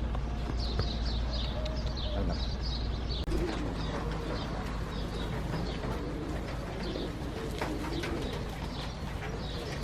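Small birds chirping over and over with doves cooing, above a steady low hum.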